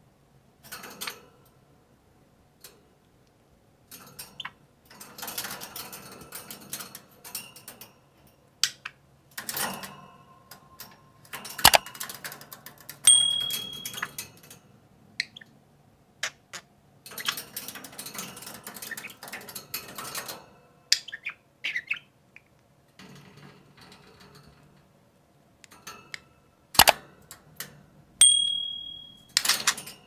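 Budgerigars chattering in scratchy bursts of a few seconds each, with two brief clear whistles and a couple of sharp clicks.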